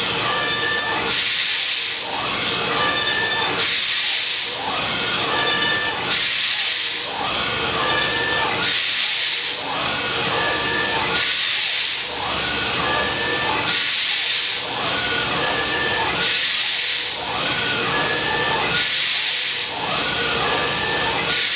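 5-axis CNC router spindle driving a thin cutter through the faces of a block, machining a ball inside a cube. The cut runs in repeated passes: a hissing cut about every two and a half seconds, alternating with the spindle's steady whine.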